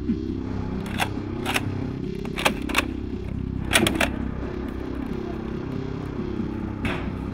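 Sharp plastic clacks of a toy dart blaster being cocked, several in the first four seconds and one more near the end, over low-pitched music.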